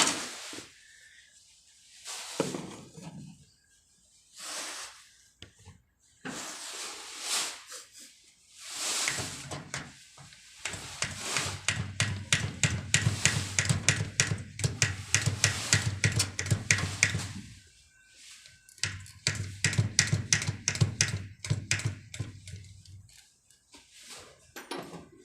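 Mercedes-Benz Actros 1841 diesel engine cranking on its starter, in two long attempts of about eight and four seconds, with a fast even pulsing of compression strokes. Each attempt stops without the engine catching: the hard starting traced to a worn fuel-pump cover. Knocks and handling noises come before the first attempt.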